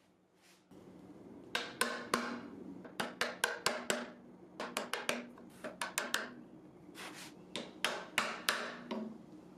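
Hand chisel chopping and paring the waste out of a small dutchman (bow-tie) recess in wood. It makes a run of sharp wooden clicks and knocks that come in quick clusters of two to four, starting about a second and a half in.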